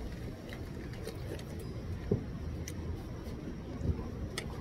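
Metal spoon clicking and scraping against a plate of fried rice during eating, scattered light clicks, with two dull knocks about two and four seconds in. A steady low hum runs underneath.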